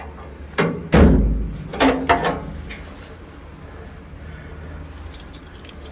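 Sharp metal clanks and knocks as a steel bracket with a coil spring is handled and tried against the underside of the truck cab, a few about a second in and more near two seconds, then a few small clicks near the end.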